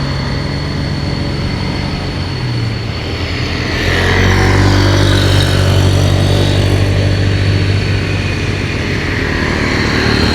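Road traffic on a bend: vehicle engines and tyre noise, with one vehicle passing close and growing louder from about four seconds in, then easing off after about eight seconds.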